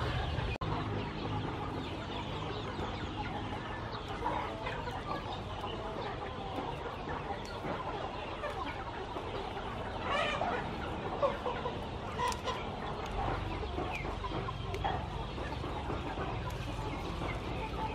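Chickens clucking, with short scattered calls over a steady outdoor background.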